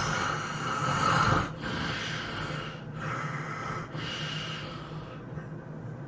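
A person snoring heavily while asleep: one loud, rasping snort over the first second and a half, then three shorter, quieter snoring breaths.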